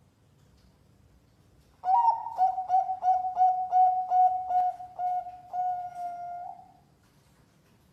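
Bangkok perkutut (zebra dove) cooing: starting about two seconds in, a run of about ten short, quick notes on one pitch, ending in a longer held note that stops near the end.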